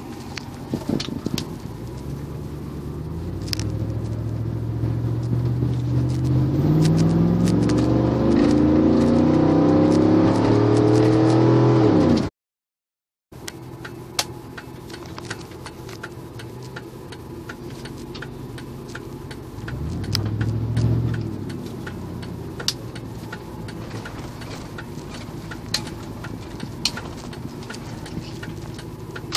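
Ford Expedition's 4.6 L V8 with the muffler removed (stock headers and cats), heard from inside the cabin, accelerating with its exhaust note climbing in pitch and loudness for about twelve seconds. It cuts off suddenly; after a second of silence the engine runs steadily and more quietly, with one brief rise and fall in revs about two-thirds of the way through. Light clicks and rattles sound throughout.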